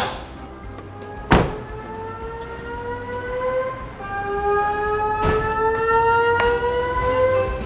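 Fire station emergency alert tone: a slowly rising tone that climbs for about four seconds, then starts again lower and climbs once more. A few sharp knocks sound over it, the loudest about a second and a half in.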